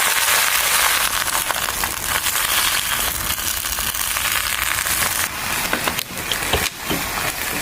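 Swiss chard and dry spices frying in hot oil in a pan: a steady sizzling hiss full of crackles, with a few sharper clicks about five to seven seconds in.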